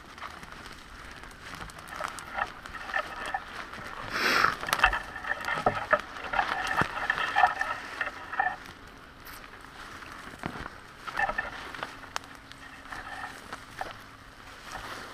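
Footsteps and legs brushing through tall dry grass and weeds: an irregular swishing, crackling rustle, busiest from about four to eight seconds in.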